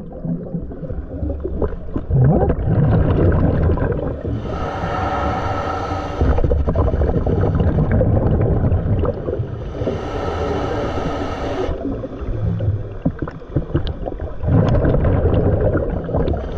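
Scuba diver breathing through a regulator underwater, about one breath every six seconds. There are two long hissing inhales, about four and ten seconds in, and between them the gurgling rumble of exhaled bubbles.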